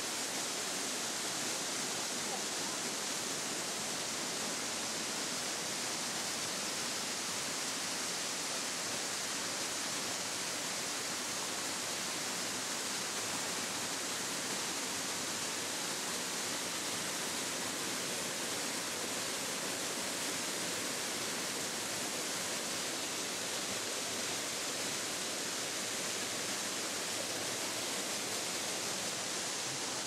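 Waterfall cascading over mossy rock ledges: a steady, even rush of falling water that does not change.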